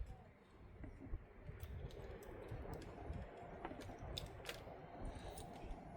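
Scattered light clicks and taps from handling wiring and plastic connector plugs, about eight of them, mostly in the second half.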